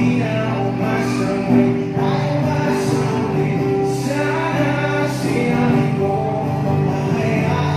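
A band playing a song with a singer's voice over the music.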